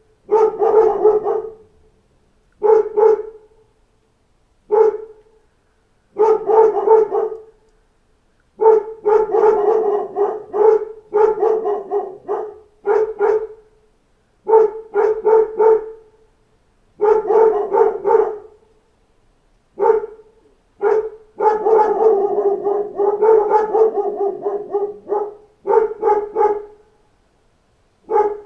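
A pack of dogs barking in repeated bouts of quick barks with short quiet gaps between, the barks running together in the longer bouts, as dogs do when alerting at knocks on a door.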